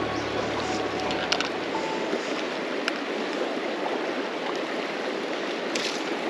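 A river running steadily over a shallow riffle, a continuous rush of water with a few faint clicks. The tail of background music fades out in the first second or two.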